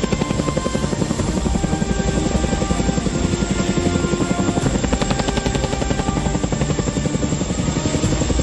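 Boeing CH-47 Chinook tandem-rotor helicopter lifting off, its rotors beating in a steady, rapid rhythm, with music underneath.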